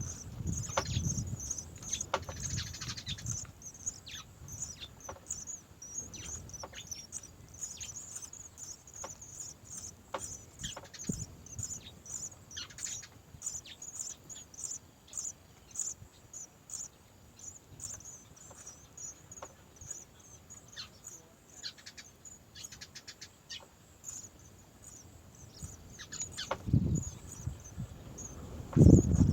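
Small birds chirping repeatedly in short, high notes over a fast, continuous high-pitched chatter. Low thuds and rumbling come briefly at the start and again near the end.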